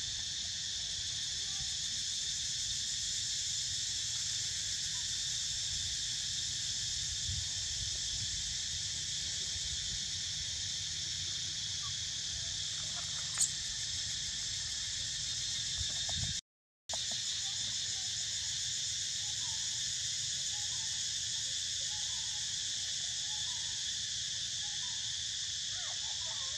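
Dense, steady high-pitched insect chorus, with one short high squeak about 13 seconds in. The sound cuts out for a moment about 16 seconds in.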